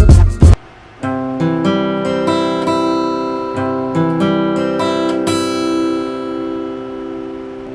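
Acoustic guitar played with a pick: a short run of single picked notes, ending on a chord left to ring and fade. Background music with a heavy beat cuts off at the very start.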